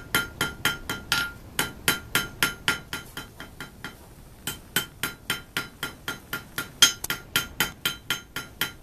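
Blacksmith's hand hammer striking a red-hot rod on the edge of an anvil: a steady run of ringing blows about four a second, with a pause of about a second and a half near the middle. The smith is knocking the corners off the rod's square point to round it.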